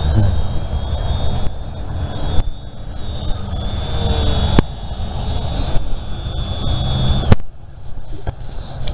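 Electric ducted fan of an RC flying wing running with a steady, slightly wavering high whine that cuts off suddenly with a click about seven seconds in. A heavy low rumble lies underneath, with another sharp click a little past halfway.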